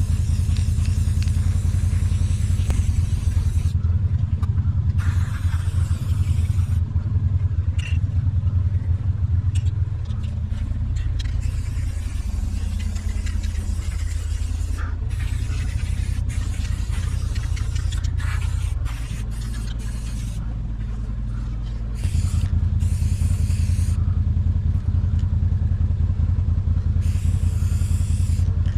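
ATV engine running steadily as it is ridden. It eases off for about three seconds roughly two-thirds of the way through, then picks up again.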